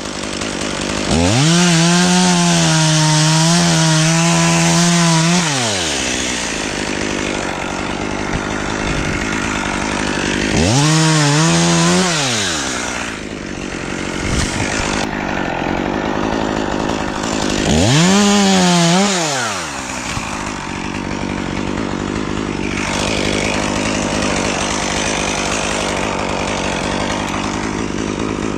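Chainsaw revved up to full throttle three times, each burst held a few seconds and then dropping back. Between the bursts it runs at a lower speed.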